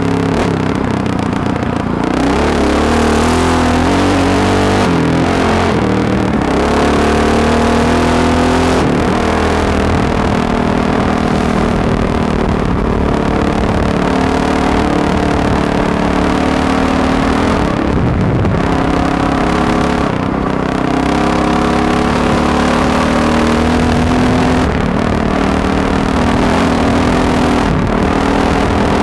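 Honda XR dirt bike's single-cylinder four-stroke engine running hard, recorded on board the bike. The pitch rises and falls as the throttle is opened and shut, with short drops in revs several times.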